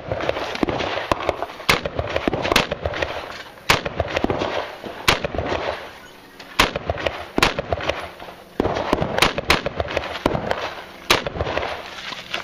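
AR-style rifle firing about a dozen sharp shots in quick, uneven strings, with short gaps between groups. Each shot is followed by a brief echo.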